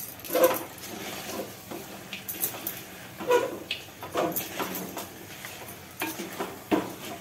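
Wooden spatula stirring a thick mutton curry in a clay pot, scraping and knocking against the pot's sides in irregular strokes.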